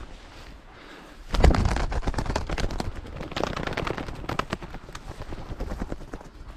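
Black grouse flushing: a sudden loud burst of wingbeats about a second and a half in, going on as rapid flapping that fades over the next few seconds.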